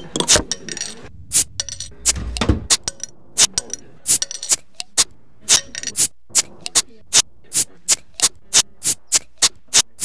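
A run of short, sharp clicking strikes, irregular at first, that speed up steadily into an even beat of about four a second, with a brief low rumble about two seconds in.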